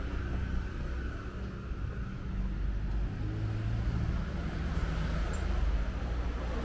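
Street traffic: motor vehicle engines running nearby, a steady low hum with city street noise around it.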